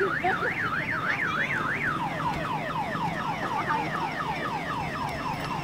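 Electronic siren-style alarm tone: a fast warble rising and falling about four times a second, switching about two seconds in to quick repeated falling sweeps.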